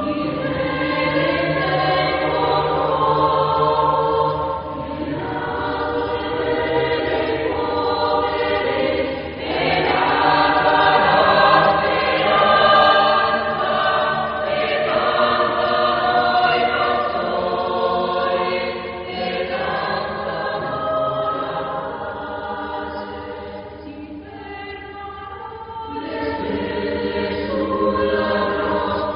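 Choral background music: a choir singing slow, long-held chords, dipping quieter about three quarters of the way through.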